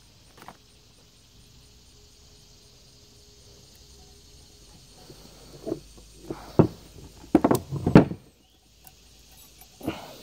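Metallic clicks and knocks of hand tools and parts being handled on a workbench, bunched about two-thirds of the way through with one more near the end, as a snap ring is fitted to a new ball joint in a steering knuckle.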